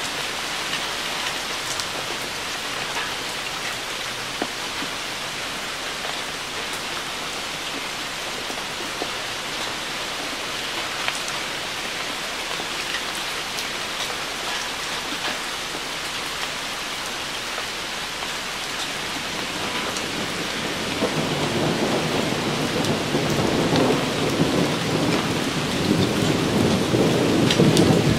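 Steady rain falling on leaves and a puddle, with scattered drop taps. About two-thirds of the way in, a long low thunder rumble rolls in and grows louder.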